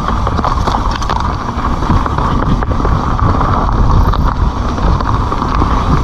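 Kona Honzo ESD hardtail mountain bike rolling over a dirt and gravel trail: steady tyre and wind noise on the mic, with scattered clicks and rattles from the bike and loose stones.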